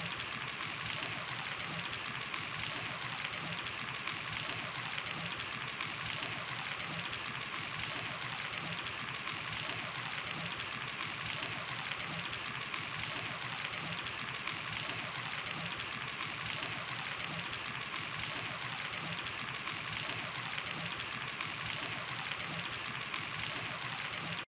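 Hot oil sizzling and bubbling steadily as sesame-coated chicken pakora pieces deep-fry in a pan, the pieces now fried through.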